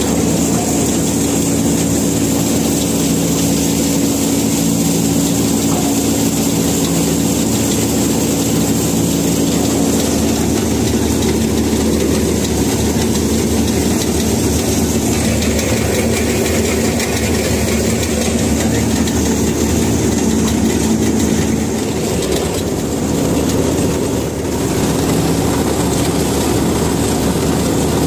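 Tractor-mounted mini combine harvester running steadily under load, the tractor engine driving the threshing and grain-auger machinery while rice is harvested. There is a brief dip in level about three-quarters of the way through.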